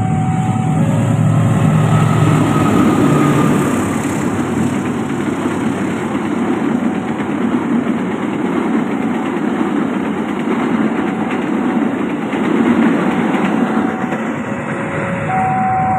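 Argo Parahyangan passenger train passing over a level crossing: the diesel locomotive's engine drone in the first few seconds, then a steady rush of the carriages' wheels on the rails. Near the end, as the train moves away, the crossing's two-tone warning bell is heard again.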